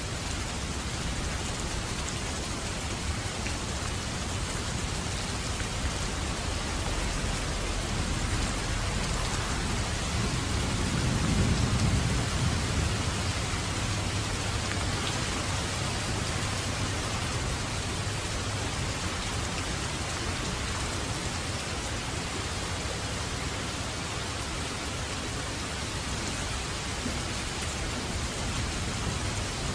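Heavy rain falling steadily. A low rumble of thunder swells and fades about eleven seconds in.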